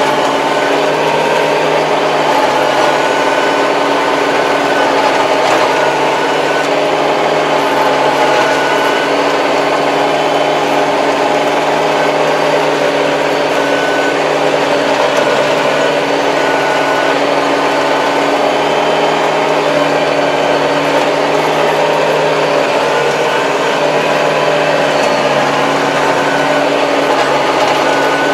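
Kubota 75-horsepower tractor's diesel engine running steadily at a constant pitch, heard from inside the cab.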